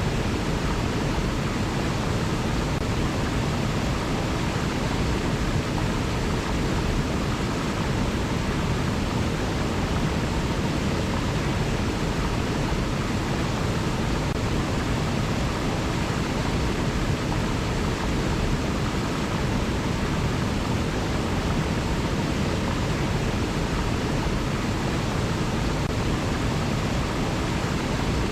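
River water flowing, a steady even rush that does not change.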